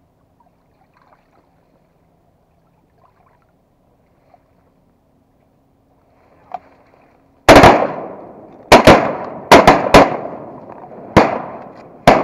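A rapid volley of shotgun blasts from several guns, about eight shots in under five seconds, some nearly overlapping. It starts about halfway through, and each shot trails off in an echo.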